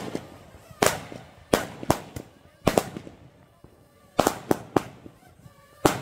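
A long string of firecrackers (a 'metralleta') going off: single sharp bangs at irregular gaps, about nine in six seconds, some in quick pairs.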